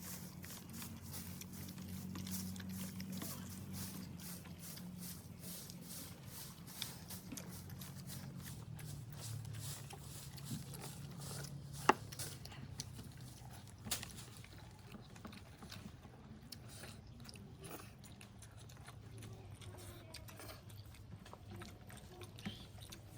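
People eating rice and egg curry at speed: chewing and mouth sounds with scattered small clicks. A sharp click comes about halfway through and another a couple of seconds later. A low steady hum runs underneath.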